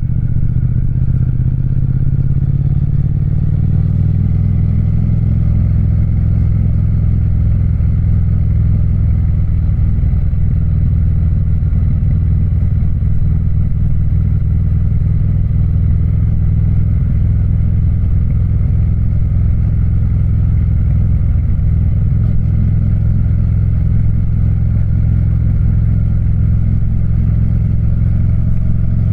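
Triumph Speed Twin parallel-twin motorcycle engine running. Its pitch rises over the first few seconds, then it holds a steady, even speed.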